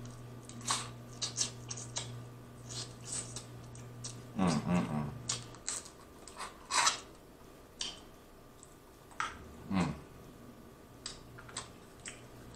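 Snow crab leg shells being cracked open with the teeth and the meat sucked out, close up: irregular sharp cracks and clicks, with two short voiced hums or slurps, one around four and a half seconds in and one near ten seconds.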